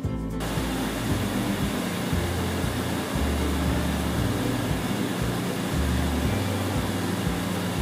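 A steady rushing noise of air handling that cuts in abruptly about half a second in, with the bass notes of background music underneath.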